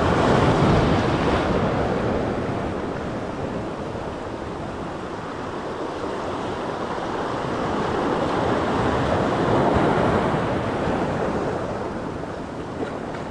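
Sea surf washing over and around shoreline rocks, a steady rushing noise that swells near the start, eases off, and swells again about eight to ten seconds in.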